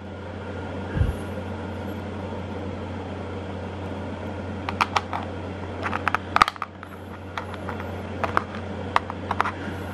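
Small clay chunks and opal chips clicking against each other and a plastic gold pan as a hand sorts through them, in scattered clusters of light clicks over a steady low hum. A single low thump about a second in.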